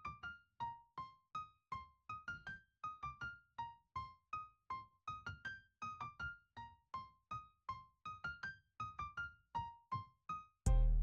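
Background music: a melody of short, quickly fading electric-piano notes, about three a second. Near the end a much louder passage with heavy bass cuts in.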